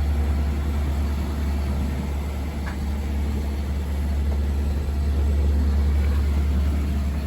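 Catalina 380 sailboat's inboard diesel engine running steadily under way, a constant low drone.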